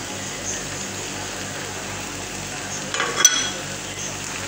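A fish and vegetable stew sizzling steadily in a pan. A little past three seconds in comes a brief cluster of clatter ending in one sharp, ringing clink of kitchenware.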